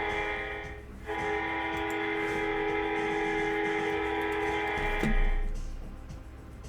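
Background music of sustained guitar chords, with a short gap about a second in and fading out near the end. A single knock comes just after five seconds.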